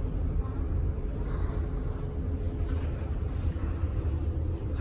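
Steady low rumble with a constant hum from the engines and machinery of the passenger ship KM Ngapulu, carried through the hull into a cabin aboard.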